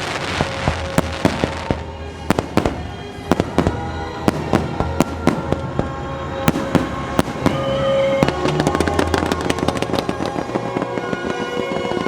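Fireworks bursting in rapid, irregular succession: many sharp bangs and pops, with crackling near the start. The show's music soundtrack plays underneath.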